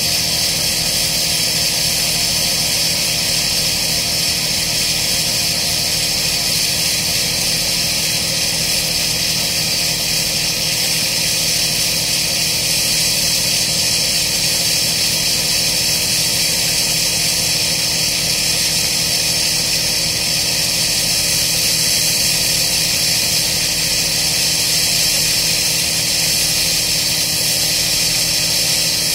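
Diesel engine of an excavator-mounted piling rig running steadily, a constant machine drone with a strong steady hiss over it and no hammer strikes.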